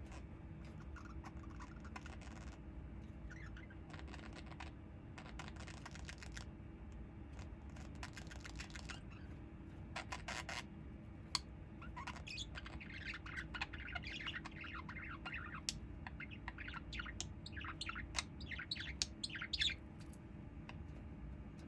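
A small bird chirping, in a rapid run of short, quick chirps in the second half, over a steady low hum. Short clicks and scratches come before it.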